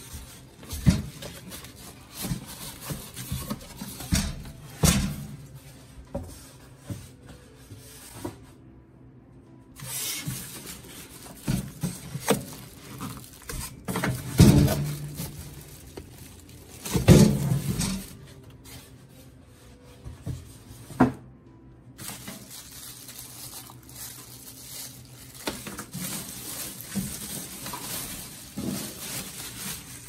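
A new toaster oven being unpacked: clear plastic bag crinkling and rustling and styrofoam packing blocks rubbing as they are pulled off. Scattered knocks and thumps run through it, the loudest a few heavy bumps around the middle.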